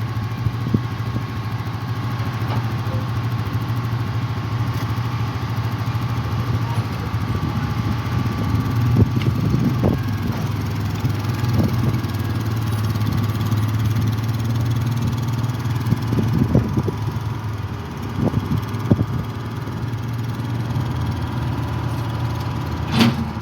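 Koehring 405 dragline's engine running steadily as the machine works, with occasional knocks.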